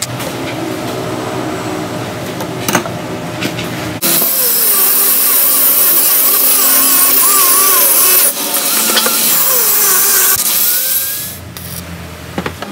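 Angle grinder cutting through a steel bar, starting suddenly about four seconds in: a loud hiss from the disc with the motor's whine wavering as it bites, breaking off briefly twice and stopping about a second before the end.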